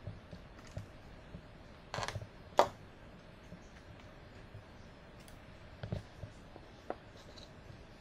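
Small clicks and taps of a screwdriver and an M.2 NVMe SSD being handled inside an open laptop: a short scraping rustle about two seconds in, then a sharp click, the loudest sound, followed later by a soft knock and one more light click.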